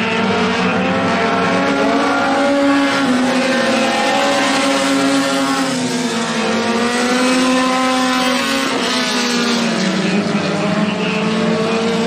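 Several Super 4 four-cylinder dirt-track race cars running laps together. Their engine notes fall and rise again as they slow into and power out of the turns.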